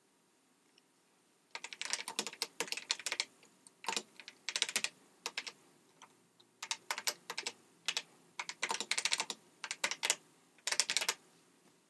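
Typing on an Apple IIe keyboard: quick runs of key clicks, separated by short pauses, starting about a second and a half in.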